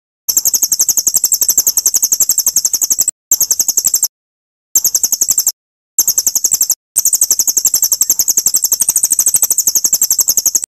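Recorded songbird call played as a masteran training tape for white-rumped shamas: a rapid, very high-pitched chirping trill at about ten chirps a second. It cuts off and restarts abruptly four times, as an edited loop.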